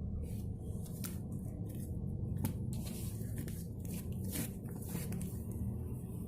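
Sticky squishing and crackling of a soap-and-powder slime mixture being worked, in scattered short clicks, most of them between a third and three quarters of the way through, over a steady low hum.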